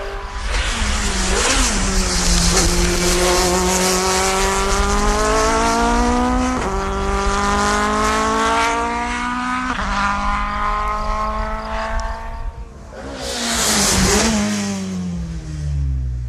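Audi A4 Quattro Super Touring race car's 2-litre naturally aspirated four-cylinder at full throttle, climbing in pitch through three quick sequential-gearbox upshifts. Near the end there is a loud rush of noise and the engine note falls away steeply.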